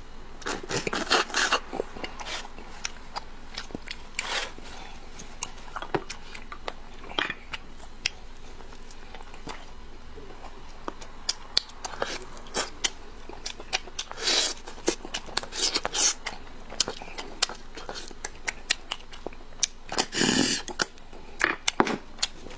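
Close-up eating sounds: a person biting and chewing food, with wet smacks and sharp clicks that come in irregular clusters.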